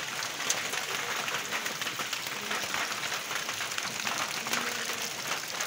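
Steady rain falling on a wet paved road and puddles: an even hiss made of many fine drop ticks.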